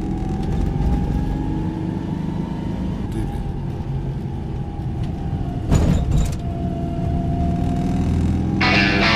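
Steady low rumble with a faint tone that drifts slowly up and then down, and a brief louder rush of noise about six seconds in. Guitar music starts just before the end.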